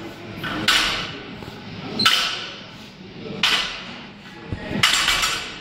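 Barbell loaded with bumper plates touching down on the gym floor between deadlift reps. Four sharp clanks come at an even pace, about one and a half seconds apart.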